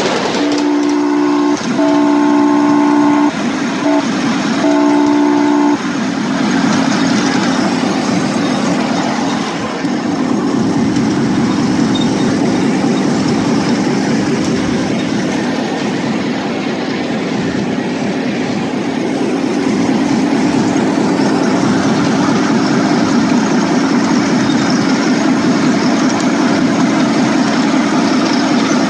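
Horn of a ride-on miniature electric locomotive sounding four blasts in the first six seconds, the third a short toot, followed by the steady drone of the locomotive running along the rails.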